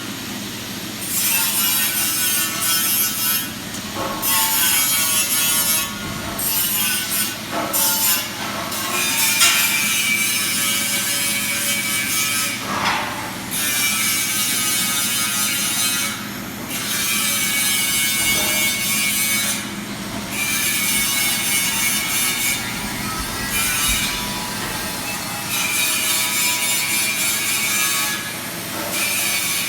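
Welding on stainless steel: a steady, noisy arc sound that breaks off briefly and restarts every few seconds.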